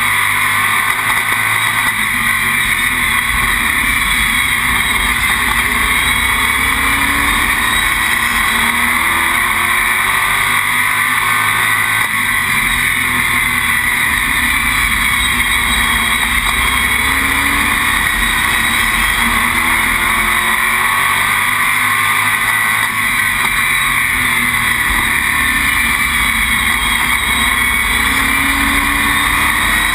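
Stock car's engine heard from inside the cockpit at racing speed, a loud continuous roar with heavy road and wind noise, its pitch climbing and dropping slowly as the car goes around the oval.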